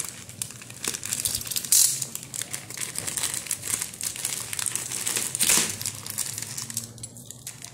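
Plastic courier mailer bag crinkling and rustling as it is handled and pried open with a pen, with two louder crackles, about two seconds in and again past five seconds.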